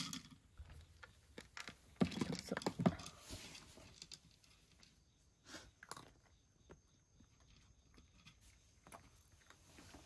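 A domestic cat eating dry kibble from a wooden dish, with irregular small crunches as it chews. Kibble rattles into the dish at the very start, and there is a louder patch of clatter about two to three seconds in.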